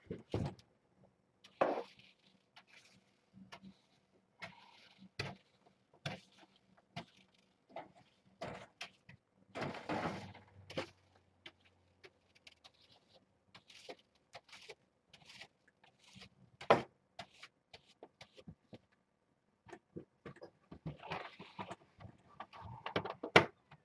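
Irregular knocks, clicks and short rustles, like objects being handled and set down; the sharpest knocks come about 17 s in and near the end.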